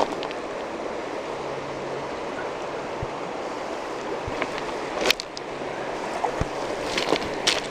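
Steady rushing of river water flowing past a gravel bank, with a few sharp clicks and knocks about five seconds in and again near the end.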